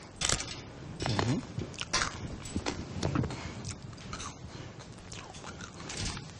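A man murmuring and whispering an incantation into a stone cupped in his hands at his mouth, in short, irregular, breathy bursts.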